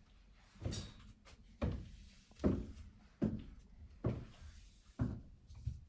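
Slow footsteps of tall platform boots on a wooden floor: about seven heavy steps, roughly one every 0.8 seconds.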